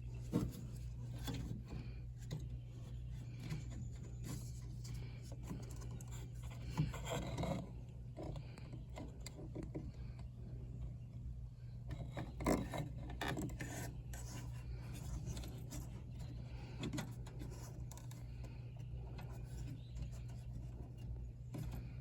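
Hands handling furnace condensate drain hoses and fittings: scattered rubbing, scraping and light knocks, a few louder ones about half a second, seven and twelve seconds in, over a steady low hum.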